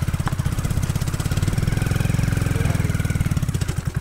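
Small motorcycle engine labouring in low gear on a steep, rough climb, its firing pulses slowing near the end as the engine begins to stall.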